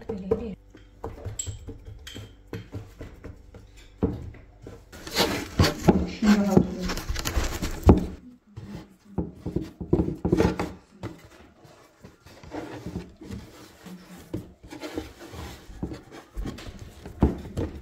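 Hands rolling up and shaping a thin sheet of dough on a wooden board: scattered soft knocks and rubbing, with a louder stretch of scraping and rustling from about five to eight seconds in.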